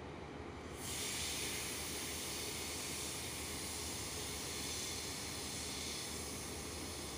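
Compressed air hissing out of a diesel locomotive's air system, starting abruptly about a second in and cutting off sharply near the end, over a steady low diesel engine rumble.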